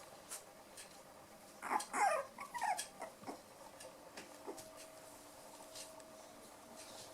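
Five-week-old poodle puppies playing: a short burst of high whining yelps about two seconds in, with scattered light clicks and taps around it.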